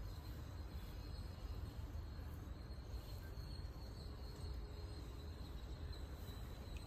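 Quiet outdoor ambience: a steady low rumble with a faint, steady high-pitched insect drone over it.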